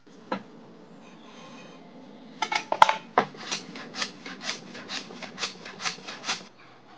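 Quick back-and-forth scraping strokes of a hand tool along the edge of a wooden station mould, about four strokes a second, shaping and fairing the edge. A few knocks come first, as the tool is set to the work.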